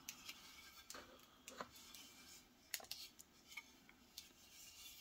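Near silence with a few faint clicks and taps from a plastic LED light bar being handled and turned over in the hands.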